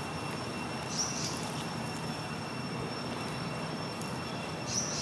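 Steady outdoor background noise with a thin, high, steady whine over it, and a brief high chirp about a second in and again near the end.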